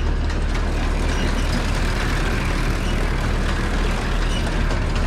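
Tractor diesel engine running steadily at working speed, driving a New Holland BR770A twine round baler, with a constant low drone.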